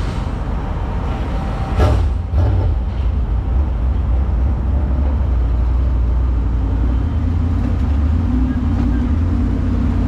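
Motor vehicle running with a steady low rumble that grows heavier about two seconds in, just after two short knocks.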